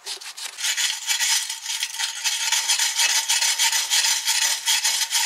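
Hand wire brush scrubbing rust off the steel frame cross member of a Honda FourTrax ATV in rapid, steady back-and-forth strokes, a loud continuous rasp.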